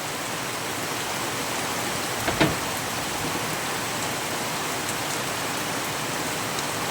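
Heavy rain falling steadily, with a single sharp knock about two and a half seconds in.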